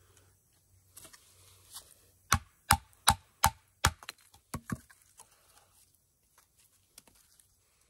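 Wooden baton striking the spine of a Reiff Knives Circadian bush knife, driving the blade across the grain through a small piece of wood. Five sharp knocks come about two and a half a second, starting about two seconds in, followed by a few lighter taps.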